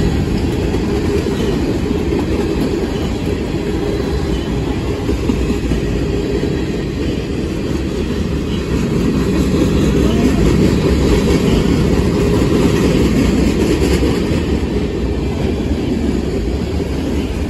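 Freight cars rolling past at close range: a steady, loud rumble of steel wheels running on the rails.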